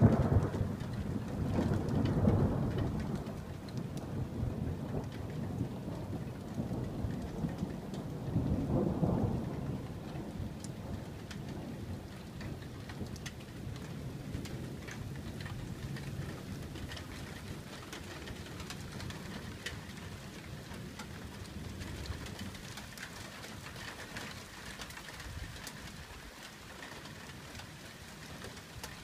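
Thunder rumbling: it breaks in suddenly at the start, swells about two seconds in and again around nine seconds, then slowly dies away. Rain falls steadily, with the ticks of individual drops.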